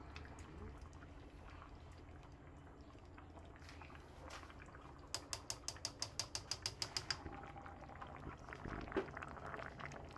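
Chicken in sauce simmering in a pan while yogurt is spooned in from a cup. Midway there is a run of about sixteen rapid, evenly spaced sharp clicks lasting about two seconds, followed by a few small knocks.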